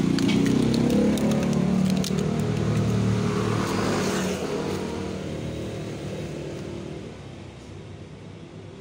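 A motor vehicle's engine running with a low hum that fades steadily over several seconds, as if moving away.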